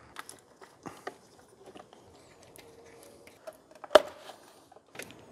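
Scattered light clicks, knocks and rustles of gloved hands working the plastic air filter housing and rubber intake boot on a BMW V12 engine, with one sharp, louder click about four seconds in.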